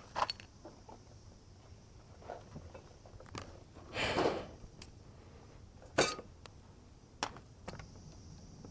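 Scattered light clicks and knocks, about five of them, from tools and parts being handled, with a softer rustling sound about four seconds in.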